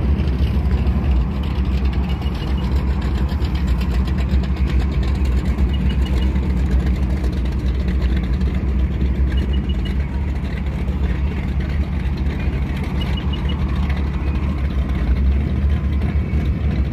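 A vehicle engine running at a steady idle, a continuous low rumble, with faint quick high chirps in threes coming back every few seconds.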